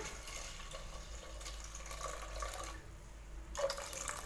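Water poured in a steady stream into a pressure cooker pot, splashing onto chopped tomatoes and soaked toor dal as the pot fills.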